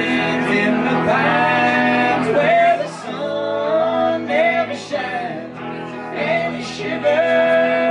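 Live band playing: male singing over electric guitar and upright double bass.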